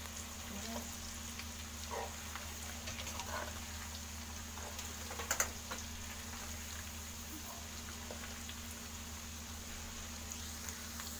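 Grated raw potato shreds frying in hot mustard oil in a kadhai: a steady bubbling sizzle, with a slotted spoon stirring and a few light knocks against the pan, the sharpest about five seconds in. The potato is being fried until crisp.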